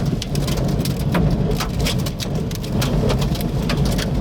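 Rain striking the chase vehicle in dense, irregular hits, over a steady low rumble of storm wind and the vehicle.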